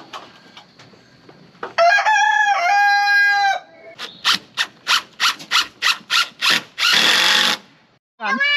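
A rooster crows once, about two seconds in. A quick run of sharp chicken clucks follows at about four a second, and a short rush of noise comes near the end.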